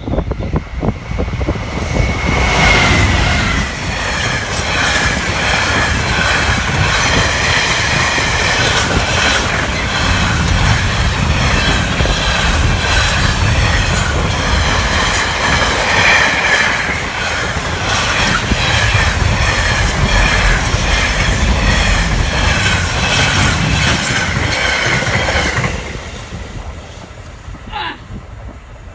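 GB Railfreight Class 66 diesel locomotive passing at speed, followed by a long intermodal container train whose wagon wheels clatter over the rail joints and squeal. The sound comes on loudly a couple of seconds in, stays at that level while the wagons go by, and drops away abruptly near the end as the last wagon passes.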